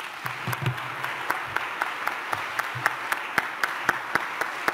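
Audience applauding: a steady patter of many hands, with a few louder, sharper single claps standing out.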